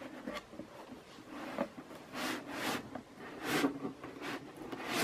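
Rigid cardboard gift box being opened, its lid rubbing and scraping against the base as it is worked off: a run of short rubbing swishes over the last three seconds, the loudest at the very end.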